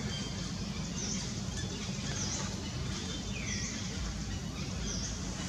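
Short high bird chirps, four or so about a second apart, one sliding down in pitch, over a steady low rumble.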